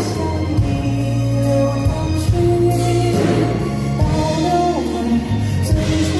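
A male singer with a high voice sings a slow ballad live into a microphone, holding long notes over band accompaniment with a steady low bass.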